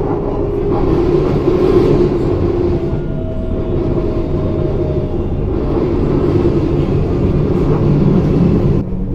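Tram train running along the track, heard from inside the driver's cab: a steady rumble of the wheels on the rails, with faint steady tones over it.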